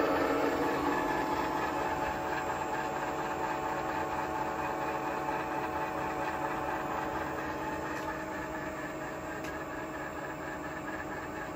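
Aciera F3 milling machine running: a steady mechanical hum made of several held tones, growing gradually fainter.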